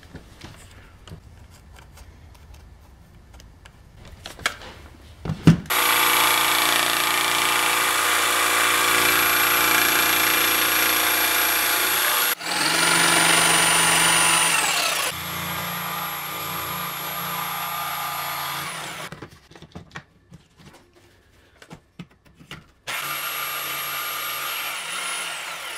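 Corded jigsaw cutting plywood: after a few seconds of light knocks, the motor starts about six seconds in and runs steadily with a high whine, saw blade rasping through the wood. It winds down around the middle, runs on more quietly, stops for a few seconds of knocks, then makes one more short cut that winds down near the end.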